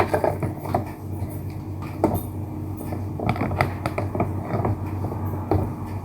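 Scattered light taps and clicks of hands working with a dish and utensils while layering a no-bake graham dessert, over a steady low hum.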